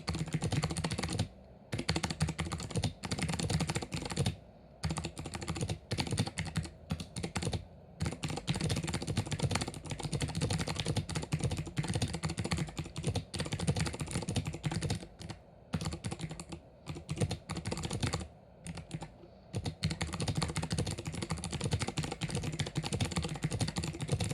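SteelSeries Apex 5 hybrid keyboard, its membrane switches topped with TTC click bars, clicking rapidly under continuous typing. The typing stops briefly a few times.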